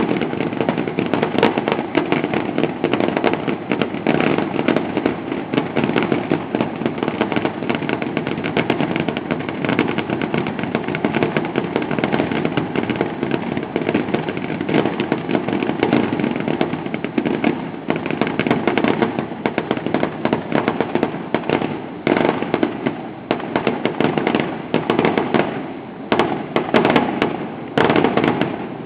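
Fireworks display in full barrage: a dense, continuous stream of bangs and crackling bursts, thinning into more separate bangs near the end.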